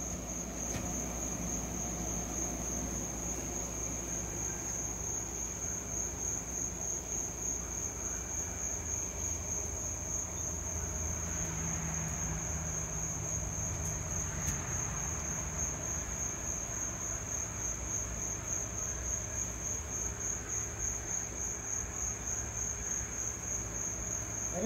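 Steady shrill trill of crickets, with the low hum of a ProVap 110 oxalic acid vaporizer running underneath as it pushes vapour into a beehive entrance to treat for varroa mites.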